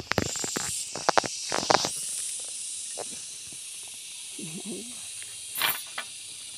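Crackling snaps and rustles of Malabar spinach stems being cut and pulled up with a knife in the first two seconds, over a steady high hiss. A brief low voice comes in past the middle, and there is a short rustle near the end.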